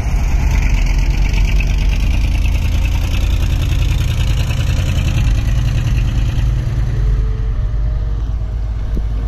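Volvo 170 excavator's diesel engine running steadily with a deep rumble, and a higher hiss over it that fades about six seconds in.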